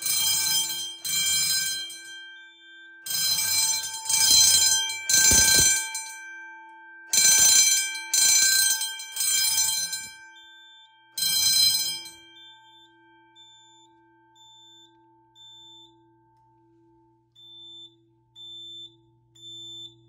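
Fire alarm bell on an EST QuickStart QS1 demo system sounding the temporal-3 evacuation code: three rings, a pause, repeated three times. The bell stops about twelve seconds in, and a faint high beep then repeats about once a second.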